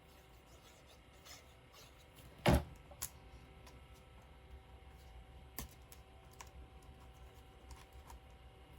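Scattered light taps and clicks of paper craft pieces being handled and pressed down on a desk, with one louder thump about two and a half seconds in.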